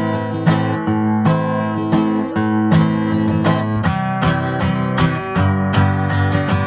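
Acoustic guitar strumming chords in a folk-style song, with no singing.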